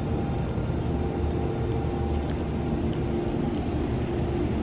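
Steady low mechanical rumble with a faint even hum, running without change.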